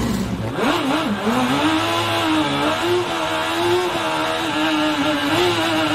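A small hatchback race car's engine, heard from inside the cabin, runs hard at high revs on track. Its pitch dips twice in quick succession about a second in, then holds high with slight wavering.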